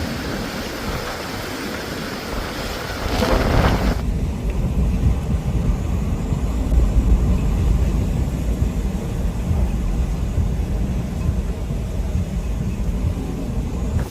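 Hurricane-force wind and rain: a steady hiss of wind-driven rain, then, after an abrupt change about four seconds in, heavy low buffeting of wind on the microphone.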